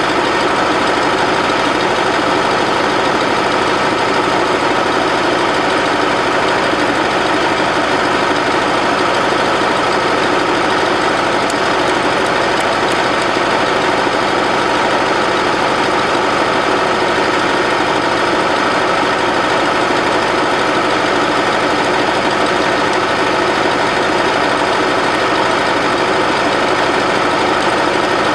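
Bobcat 610 skid-steer loader's Wisconsin gasoline engine running steadily at an even speed, with no change in pitch or level.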